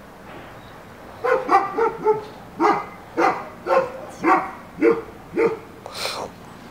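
A dog barking repeatedly, about ten short barks at roughly two a second, starting about a second in.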